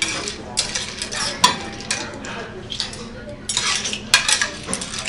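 Metal utensils scraping and clinking against a stainless steel sauté pan as linguine with clams is worked out of it into a bowl. There are sharp clinks about a second and a half in and again about four seconds in.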